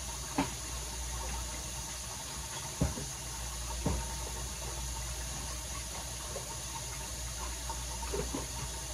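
Seasoning bottles and jars knocking as they are taken out of a kitchen cabinet and set down: three short clunks in the first few seconds and a couple of fainter ones near the end, over a steady hiss.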